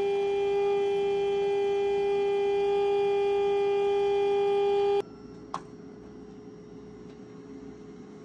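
La Marzocco Strada EP espresso machine's pump running during the extraction: a loud, steady high hum with overtones that stops abruptly about five seconds in. Then only low background noise remains, with a single short click.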